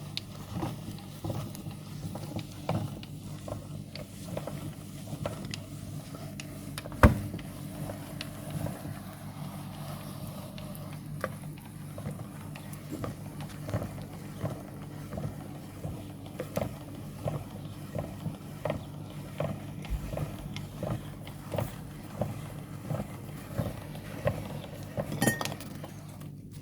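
Meat grinder running with a steady motor hum, with irregular small cracks and clicks as chocolate-coated marshmallows are ground, and one sharp crack about seven seconds in.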